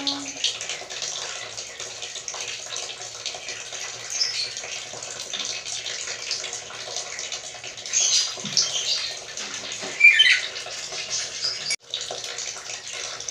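Black-capped lory giving a few short, sharp squawking calls, about 4, 8 and 10 seconds in, the last the loudest, over a steady background hiss.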